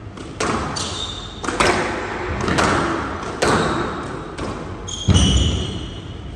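Squash rally: the ball is struck by rackets and cracks off the walls about once a second, each hit echoing in the hall, with short high squeaks of court shoes on the floor. The heaviest, thuddier impact comes about five seconds in.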